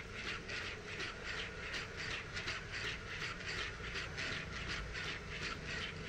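Boston Dynamics Spot quadruped robot walking on a concrete floor: a quick, even rhythm of footfalls and leg-motor noise, about three to four a second, over a low steady hum.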